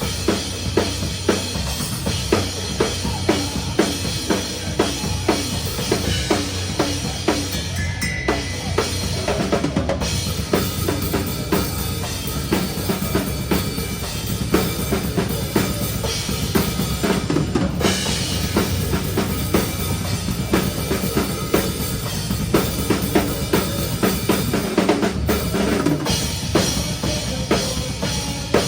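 Drum kit played hard in a live metalcore song, heard close up with a dense run of kick drum and snare strokes and regular loud hits, the band's music underneath.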